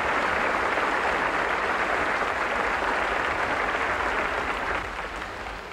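Theatre audience applauding steadily, then fading away near the end.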